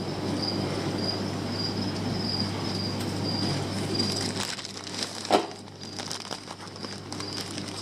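Plastic fish bags crinkling and rustling as they are handled and pulled out of a plastic-lined shipping box, with a sharp knock about five seconds in. A thin, high chirp repeats about twice a second behind it.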